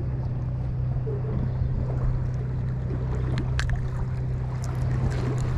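Fishing boat's engine running with a steady low hum, under a haze of wind and water noise. A few faint clicks come in the second half.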